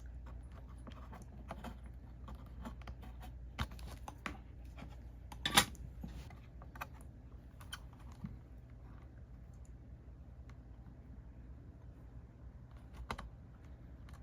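Scattered light clicks and taps of small tools on a circuit board during desoldering with solder wick, with one sharper click about five and a half seconds in, over a low steady hum.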